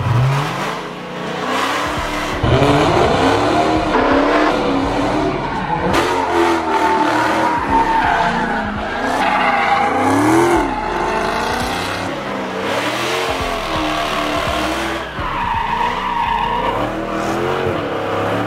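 Supercharged V8 of a Dodge Charger Hellcat revving up and down hard as the car drifts, with its rear tires squealing through the slides. Engine and tire pitch keep rising and falling as the car swings through the turns.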